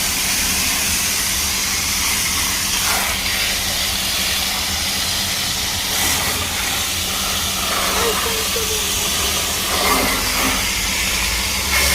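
A spray jet hissing steadily and loudly while a window air conditioner is cleaned.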